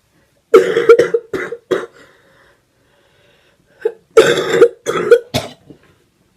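A person coughing hard in two bouts, about three seconds apart, while eating a cricket: a reaction to the cricket's dry, powdery bits.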